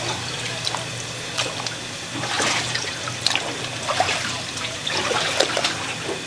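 Water trickling and splashing, with scattered short clicks and knocks over a steady low hum.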